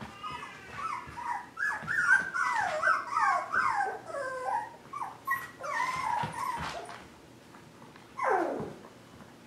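Five-week-old mini Swiss Mountain Doodle puppies yipping and whining as they play: a quick run of short, high, falling calls, then one longer whine sliding down in pitch near the end.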